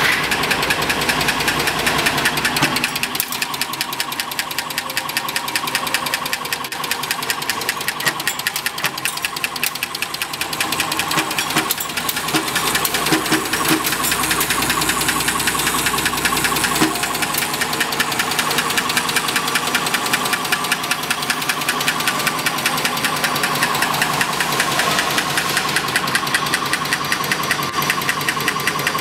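Automatic screw-making machine with a vibratory bowl feeder running at speed: a fast, even mechanical clatter that goes on without a break.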